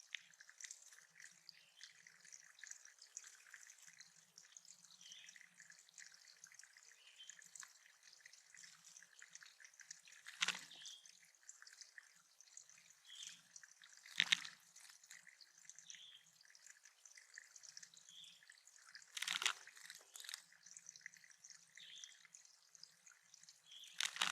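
Water dripping and trickling into a small backyard bird pond, with four louder sharp splashes spaced a few seconds apart. Faint short bird calls repeat behind it.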